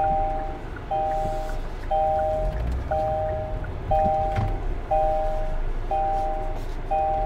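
Kia K5's in-cabin warning chime beeping steadily, a two-tone beep about once a second, eight times, over the low hum of the car.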